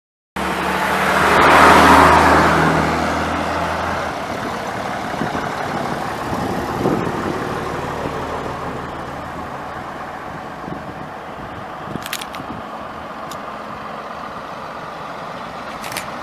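A motor vehicle's engine passes close by, loudest about two seconds in. It then fades into steady engine and road noise.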